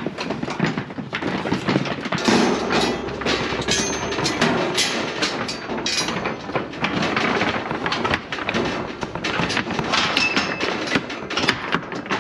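Dense, irregular clattering and knocking of a steel livestock truck crate while lambs are loaded: hooves on the metal deck and rattling rails and gates.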